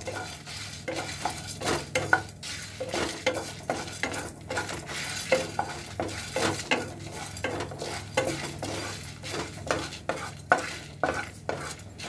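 A utensil stirring and scraping whole spices and dals as they fry in a little oil in a pan, with a light sizzle; the strokes come irregularly, a few a second, as the mix roasts toward light brown.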